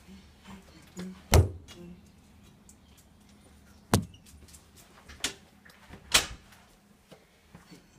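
A series of sharp knocks and bangs, about five in all, the loudest just over a second in and about six seconds in.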